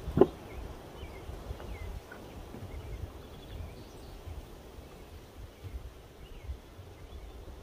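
Wind buffeting the microphone as a low rumble, with faint bird chirps, and a single sharp thump just after the start.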